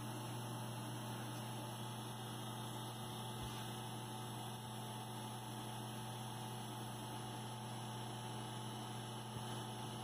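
Steady low electrical mains hum over a faint hiss.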